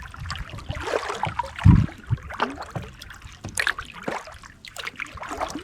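Canoe paddle strokes in calm water: splashing and dripping from the blade, with one low thump about a second and a half in.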